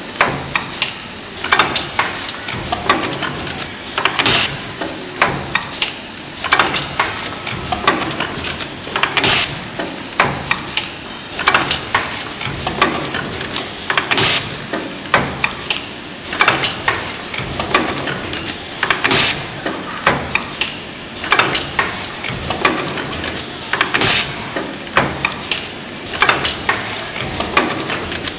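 Paper napkin bagging machine running: steady mechanical noise with repeated sharp knocks from its pneumatic pusher and bag sealing and cutting, the loudest about every five seconds.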